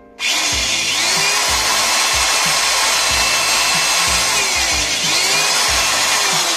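Khadija 350 W, 2600 RPM corded electric drill with a 10 mm chuck, boring a hole through a laminate-faced plywood board. The motor starts suddenly about a quarter second in and then runs at a steady level.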